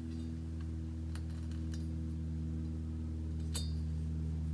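Light metallic clicks of a Wiseco piston ring being squeezed and set into the bore of a bare aluminium cylinder for an end-gap check. A handful of faint ticks, the sharpest about three and a half seconds in, over a steady low hum.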